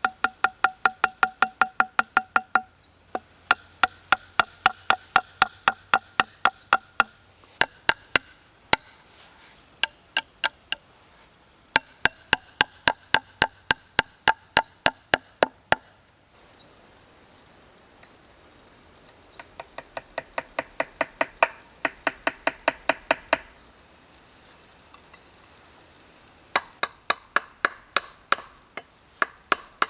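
Rapid, even strikes of a tool on wood, about four to five a second, in runs of a few seconds broken by short pauses; each blow rings with a clear pitch.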